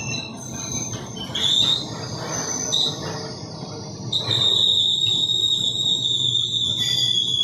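Passenger train running slowly, heard from a carriage window: a steady low rumble, with high steady tones over it that get much louder about four seconds in.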